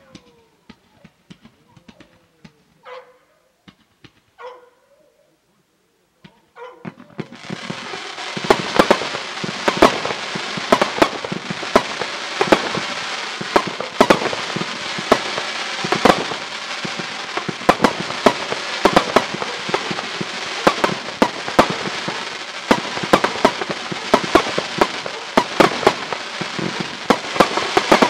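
Fireworks battery (cake) firing fan-shaped volleys. About seven seconds in, after a few faint pops and voices, a loud, dense, fast run of shots and crackling starts and keeps going.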